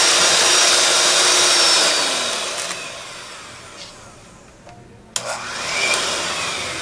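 Electric hand mixer beating a thick butter-and-sugar cream, with a steady high whine. About two seconds in the motor winds down and goes quieter. Then there is a click near five seconds, and the motor briefly speeds up and slows again.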